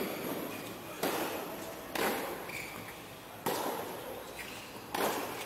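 Tennis ball struck back and forth by rackets during a doubles rally: four sharp hits about a second to a second and a half apart, each with a short ring after it.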